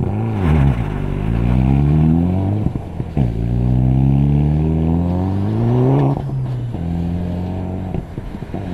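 Mitsubishi Lancer Evolution rally car's turbocharged four-cylinder engine revving hard as the car slides on ice. The revs climb in long rising sweeps, drop sharply twice, about two and a half and six seconds in, then hold steadier near the end.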